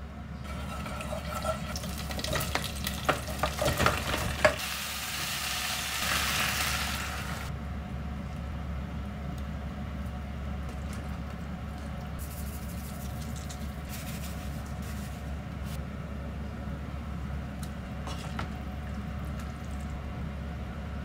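Food sizzling in hot oil in a pot, with a wooden spoon clattering and stirring against the pot in the first few seconds. The sizzle is loudest for a few seconds just after the stirring, then settles into a steady quieter sizzle over a low hum.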